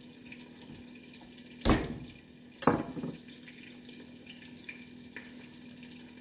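Onions frying in oil in a pot, a faint steady sizzle over a steady low hum. Two loud knocks come about a second apart in the middle.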